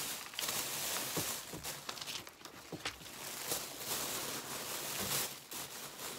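Packaging crinkling and rustling as a purchased item is unwrapped and pulled out by hand, with many small crackles and a few soft knocks.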